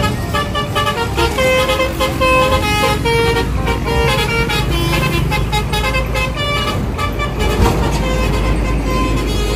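Basuri telolet bus horn playing a quick tune of short, changing notes, with the bus engine running underneath.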